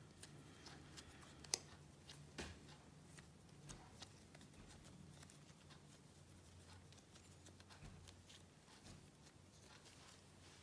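Near silence: a faint steady room hum with soft handling sounds of hands shaping a ball of bread dough on the worktop, and one sharp click about a second and a half in.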